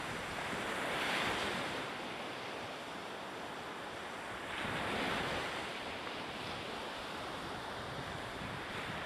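Steady rushing of coastal wind and sea surf, with wind buffeting the microphone. It swells twice, about a second in and again about five seconds in.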